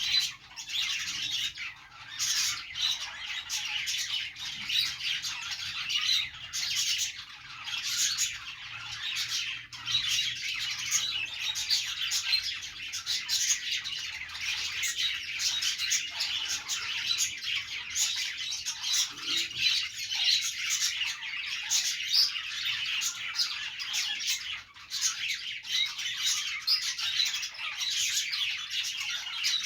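Several pet budgerigars chattering and warbling in a dense, continuous stream of chirps and squawks, with brief lulls just after the start and about three-quarters of the way through.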